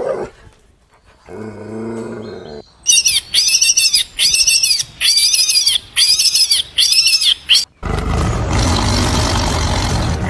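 A series of six short, high-pitched squeaky calls about once a second, then, from about eight seconds in, a tiger's long, rough roar.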